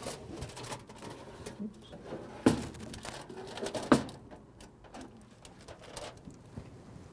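Metal clanks from a wall oven as its rack and a metal pan are handled and the pan is drawn out: a few sharp knocks, the loudest about two and a half and four seconds in.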